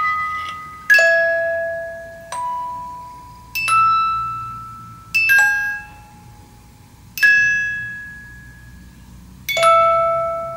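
Music box movement in a lacquered jewellery box playing a slow tune: about seven single bell-like plucked notes, one every second or two, each ringing out and fading before the next.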